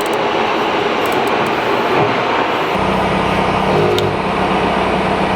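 Steady, loud machine noise. About three seconds in, a low steady hum starts suddenly and keeps running alongside it.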